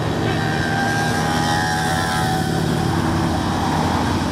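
A stream of motorcycles passing below on a dual carriageway, engines running together in a steady drone. From about a second in, one passing engine's note falls in pitch as it goes by.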